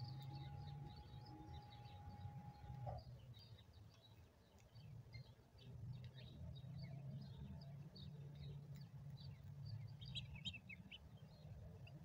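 Faint bird chirps and twitters scattered throughout, with a denser burst of them near the end, over a low rumble. A faint steady tone stops about three seconds in.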